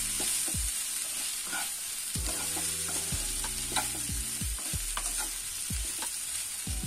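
Wooden spatula stirring and tossing poha (flattened rice) with potatoes and peas in a non-stick frying pan, scraping and knocking against the pan about twice a second, over a steady sizzle of the mixture frying.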